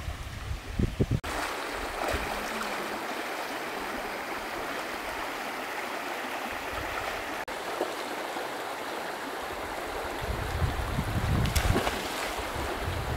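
Running stream water: a steady rushing. Near the end, low wind buffeting on the microphone comes in under it.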